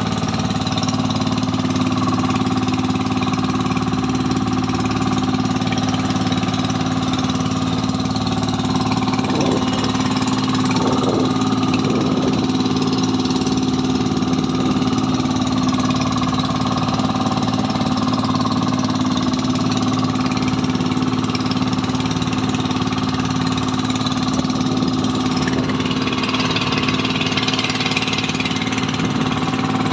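Outrigger fishing boat's engine running steadily at an even pitch while the boat is under way.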